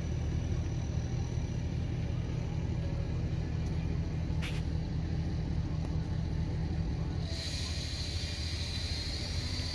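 A steady low engine rumble. A short hiss comes about four and a half seconds in, and a higher steady hiss joins from about seven seconds in.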